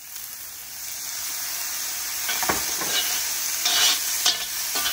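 Soy sauce sizzling on the hot Lodge cast iron wok full of rice, the sizzle swelling about a second in. From about halfway, a metal ladle and a metal spatula scrape and clink against the cast iron as the rice is stirred.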